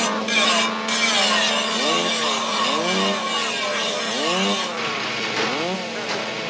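Chainsaws running in a fight, their engine pitch rising and falling again and again as they are revved and swung.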